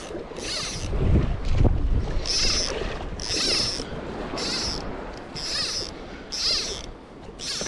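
Fly line being stripped in through the rod guides: a hissing zip about once a second, eight times, with wind rumbling on the microphone, strongest about a second in.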